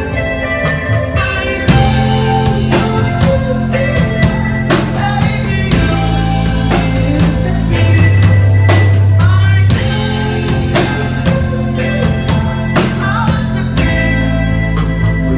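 A rock band playing live: a drum kit hitting steadily over electric guitars and low, held bass notes that shift pitch a few times.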